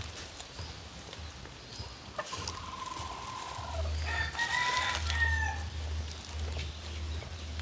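A rooster crowing once, a drawn-out cock-a-doodle-doo of about three seconds starting about two seconds in, ending on a falling note.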